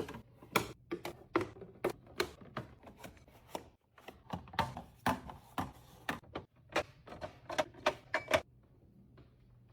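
Irregular light clicks and knocks, about two or three a second, of items being handled and set down. They stop about a second before the end.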